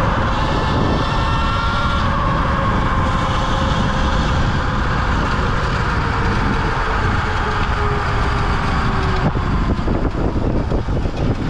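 Electric dirt bike in motion: wind rushes over the microphone with the motor's whine drifting slowly in pitch. The sound turns choppier, with a few knocks, near the end.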